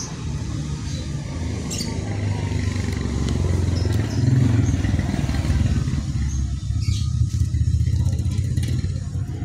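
A motor vehicle engine running, a low steady rumble that swells about four seconds in.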